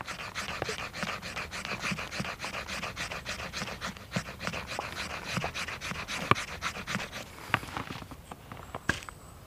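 Knife blade shaving thin curls off a Norwegian spruce stick for a feather stick: a quick run of short scraping strokes that thins out and stops about eight seconds in.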